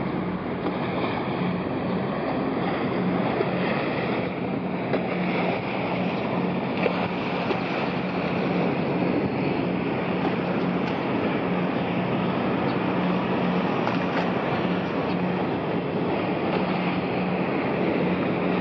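Kvaerner Fjellstrand Foilcat 35M high-speed ferry's gas turbines running at low power as it manoeuvres slowly alongside a pier to berth. A steady low hum sits under a broad rushing of churned water and wind.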